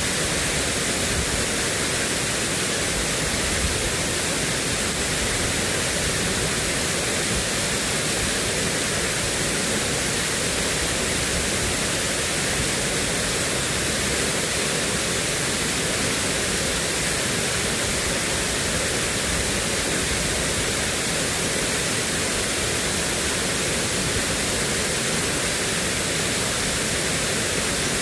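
Steady, even hiss of water, unchanging throughout.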